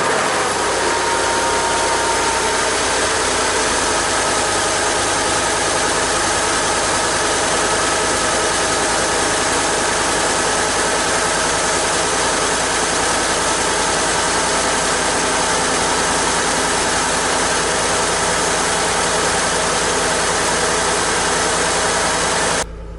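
2013 Ford F-150's 5.0 L V8 engine idling steadily in the first seconds after being started, running on Motorcraft oil for a noise comparison. The sound cuts off abruptly shortly before the end.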